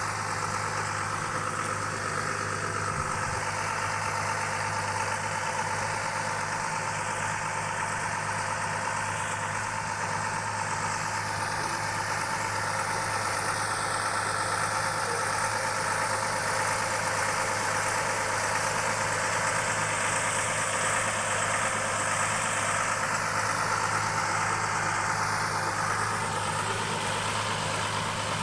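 Kores diamond drilling rig's engine running at a steady, even speed as the rig moves, a constant low hum with no revving.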